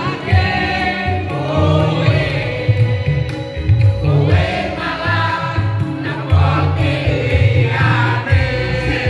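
Karaoke: a group of voices singing along to a backing track with a pulsing bass beat, picked up through a handheld microphone.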